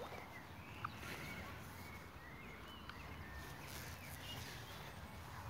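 Small birds chirping faintly in short, scattered notes over a low steady rumble.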